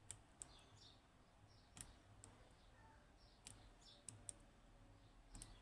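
Faint, irregular small clicks of a pick probing and lifting pins inside a Yanai R2200M high pin count lock, some coming in quick pairs, as each pin is checked for being set.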